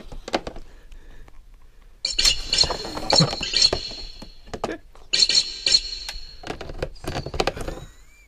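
A dog's teeth and nose knocking and scraping on an electronic keyboard's plastic casing and speaker grille: a run of sharp clicks and thunks. From about two seconds in, a high steady tone comes and goes twice behind the clicks.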